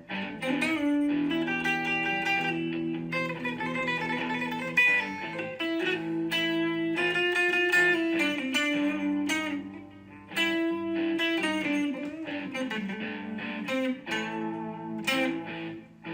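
Background music: plucked guitar playing chords and melody notes, with a short pause about ten seconds in.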